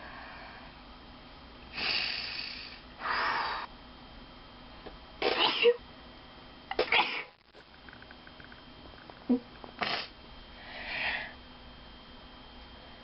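A person sneezing: breathy intakes, then two sharp sneezes about five and a half and seven seconds in, followed by a couple of shorter bursts and another breath.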